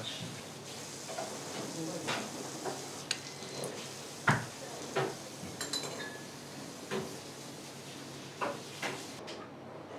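Dishes and utensils being handled: scattered light knocks and clinks, the loudest about four seconds in, over a steady hiss that fades near the end.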